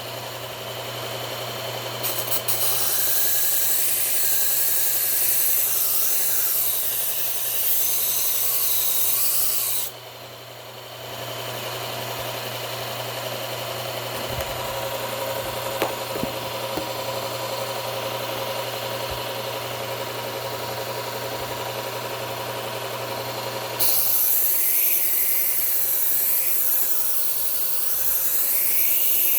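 Steel knife blade ground against a running belt sharpener to take a chip out of the edge: two long spells of grinding, the first lasting about eight seconds, the second starting near the end, with the machine's motor humming steadily between them.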